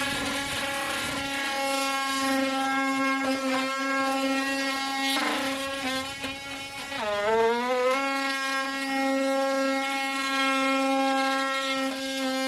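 Oscillating multi-tool running steadily with a high buzzing hum, its pitch sagging briefly about seven seconds in as it comes under load, then picking back up.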